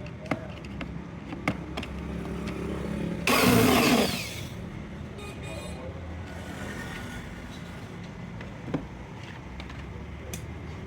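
A steady low engine hum, like a motor vehicle running nearby, with scattered clicks and a loud, noisy burst lasting about a second, about three seconds in.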